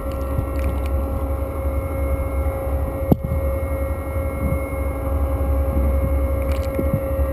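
Underwater recording of a research ship's machinery: a steady low rumble with a constant hum over it. A single sharp click comes about three seconds in.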